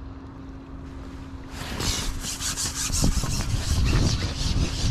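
A rasping, rubbing noise starts about a second and a half in and carries on over a low rumble.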